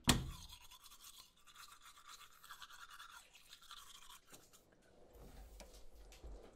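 A door bangs shut, followed by a fast, scratchy rasping that thins out about four seconds in.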